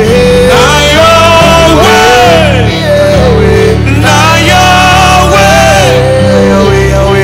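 Gospel worship music: men singing a melody that slides and bends from note to note, over sustained electronic keyboard chords.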